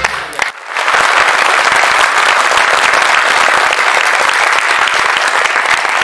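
Audience applauding, a dense, steady clapping that starts about a second in and keeps up loudly.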